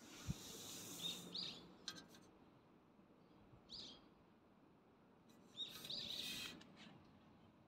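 Small birds chirping: short high calls in little groups a few seconds apart, over a faint outdoor background with two brief rushes of hiss.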